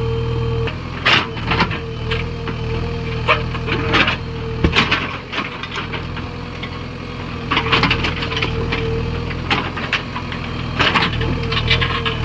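JCB 3DX backhoe loader's diesel engine running steadily under a constant whine, with repeated sharp knocks and scrapes from the machine at work, in clusters about a second in, around four seconds in, between about seven and nine seconds, and near the end.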